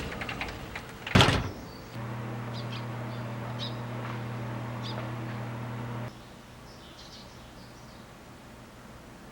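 A single loud thump about a second in, then a steady low mechanical hum for about four seconds that cuts off suddenly, with faint high chirps in the background.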